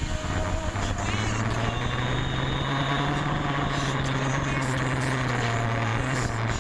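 Dirt bike engine running under steady throttle while the bike is ridden along a trail. Its note changes about a second in, then holds an even pitch. Wind rushes over the microphone throughout.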